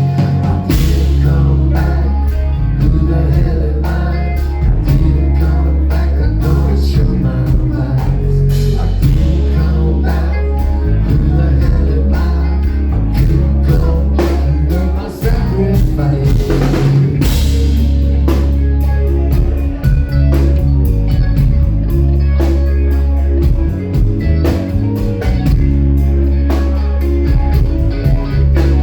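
Live rock band playing loud: drum kit, electric guitar and heavy bass.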